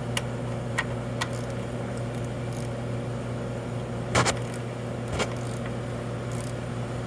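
A few sharp clicks and knocks of a 27mm socket tool on the oil filter housing cap, the loudest about four seconds in, over a steady low hum.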